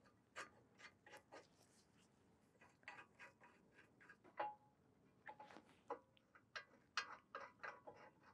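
Faint, irregular metallic clicks and taps as a VW Passat front brake caliper carrier bracket is held in place and its carrier bolts are lined up and threaded in by hand.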